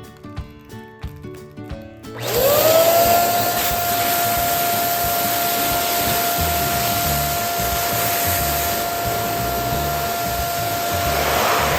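Plucked background music, then about two seconds in an electric balloon pump switches on: its motor whine rises quickly in pitch and settles into a steady tone over a loud rush of air as a balloon is inflated.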